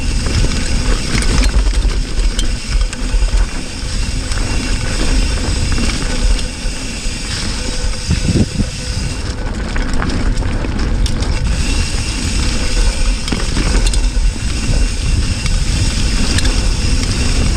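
Cannondale Cujo hardtail mountain bike riding a dirt singletrack descent: Maxxis knobby tyres rumbling and crunching over the ground without a break, with many small clicks and knocks from the bike as it goes over bumps.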